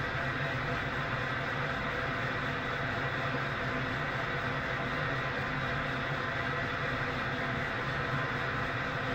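Television tuned to static, giving out a steady white-noise hiss with a faint low hum underneath.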